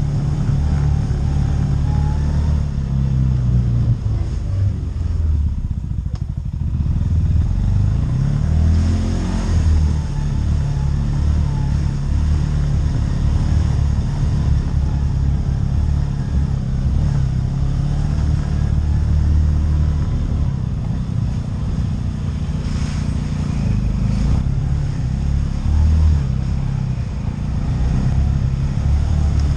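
ATV engine running as the machine is ridden, its pitch rising and falling with the throttle and climbing noticeably about nine seconds in.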